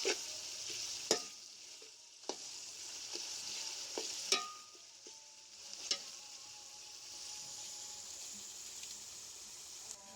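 Bitter gourd and potatoes sizzling in oil in a pan while being stirred, with the spoon knocking against the pan about six times in the first six seconds. The sizzle is quieter in the second half.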